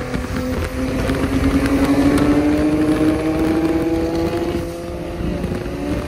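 Car engine pulling under acceleration, its pitch rising steadily for about four seconds, then easing off near the end, over road and wind noise.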